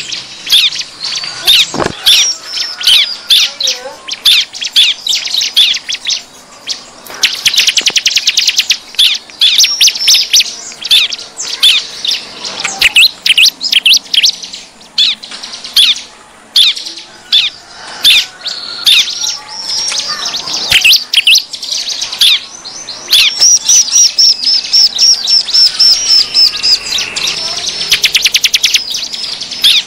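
Bar-winged prinias (ciblek) calling loudly: dense, high-pitched chattering and chips, broken several times by fast rattling trills. This is the agitated 'ribut' call used as a lure to draw wild ciblek in.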